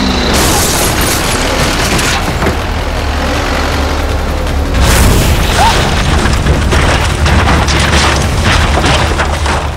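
Loud dramatic background score with booming percussion hits over a steady low rumble, growing louder about halfway through.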